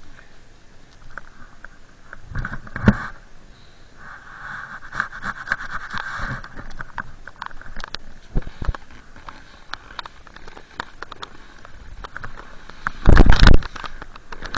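Snowboard sliding through deep powder snow: a scraping hiss with scattered clicks and knocks. A loud, brief rumble breaks in about a second and a half before the end.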